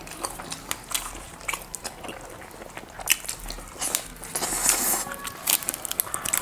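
Biting and chewing meat on the bone, a mutton lollipop, with many short clicks of the mouth and teeth, busiest about four to five seconds in.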